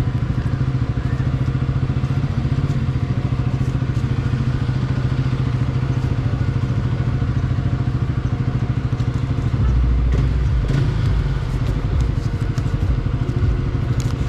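Motorcycle engine running steadily at low speed, with a deeper low rumble coming in about ten seconds in.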